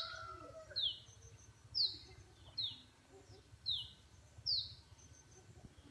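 A bird repeating a short, high call that slides downward, six times at roughly one-second intervals.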